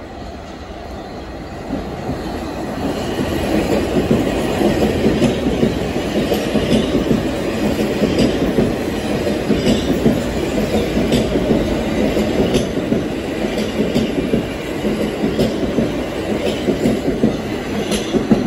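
R160 New York City subway train passing through a station without stopping. Its rumble builds over the first few seconds as it comes out of the tunnel, then the cars run by with a steady rumble and a regular click of wheels about every second and a half.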